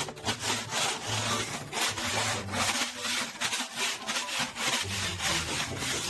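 Repeated rasping, scraping strokes, a dense scratchy noise over a low bass line of background music.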